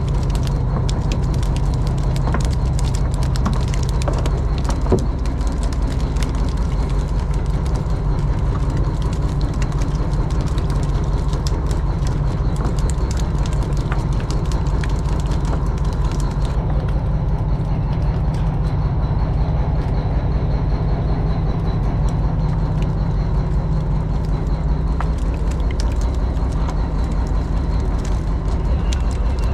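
Fishing boat's engine running steadily: a low, even rumble with a fast regular beat.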